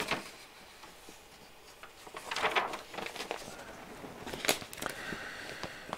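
Light rustling and scattered small clicks from hands handling RC kit parts and paper at a workbench, with two short bursts of rustling about two and a half and four and a half seconds in.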